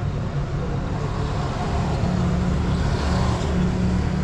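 A vehicle engine running steadily, a low rumble.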